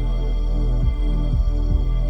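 Ambient electronic music with a deep sustained bass and soft beats about twice a second, played as a speaker sound demo.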